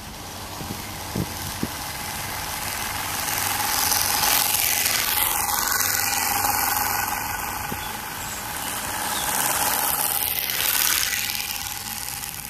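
TURBOSPOKE bicycle exhaust running on a moving bicycle: a plastic motor card clipped to the frame is slapped by the wheel spokes, making a motorbike-like buzz through the exhaust pipe. The buzz grows louder and fades twice.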